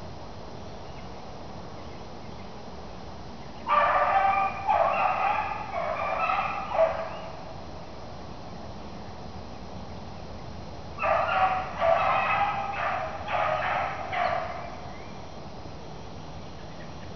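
A beagle baying on a cottontail rabbit's trail: two runs of quick barks, each lasting about three seconds, with a pause of several seconds between them.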